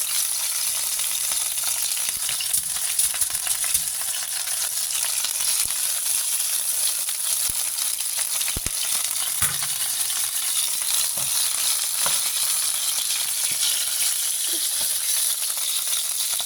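Steak pieces sizzling in hot olive oil in a frying pan: a steady frying hiss, with a few faint knocks.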